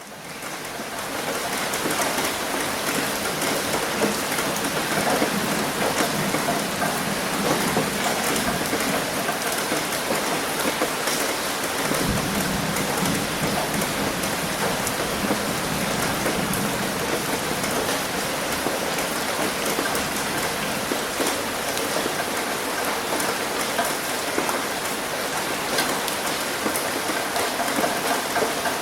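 Steady, dense rain falling, fading in over the first second or two, with a brief low rumble about twelve seconds in.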